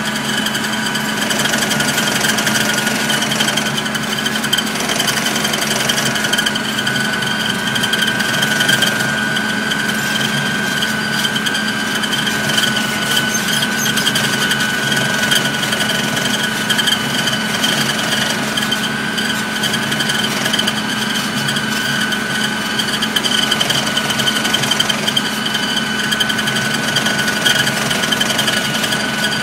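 Vehicle engine running steadily at an unchanging speed while driving, with a constant mechanical drone and a steady whine.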